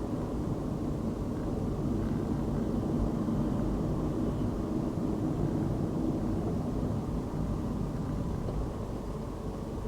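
A car driving on a city road: a steady low rumble of engine and tyre noise, with a faint engine hum.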